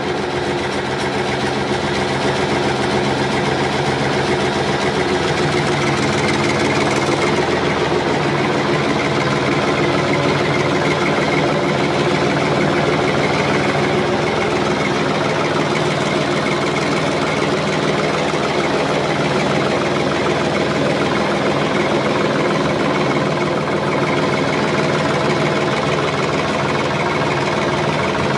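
Heavy farm machine's engine running steadily, with a slight shift in tone about seven seconds in.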